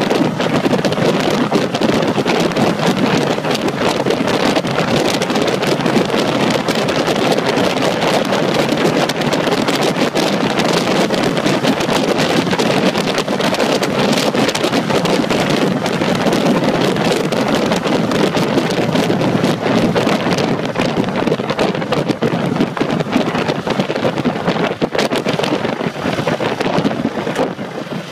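Steady wind rush on the camera microphone while riding a 2010 Ducati Multistrada at about 50 mph, mixed with the motorcycle's running and road noise; it eases slightly near the end as the bike slows.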